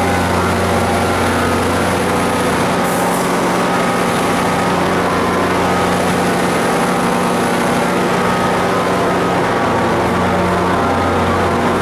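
NJ Transit diesel-electric locomotive's engine running steadily at close range, a constant low drone with a brief faint hiss about three seconds in.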